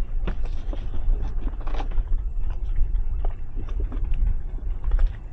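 Small towboat under way with a cabin cruiser in tow: a steady low rumble of motor and wind, with scattered small knocks and scrapes from the tow line being handled on the stern.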